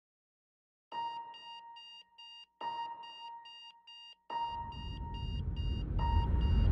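Electronic beeping in a steady rhythm, about three short high beeps a second, over a lower held tone that restarts every second and a half or so. It begins about a second in, and a rising rush of noise builds under it from about four seconds in.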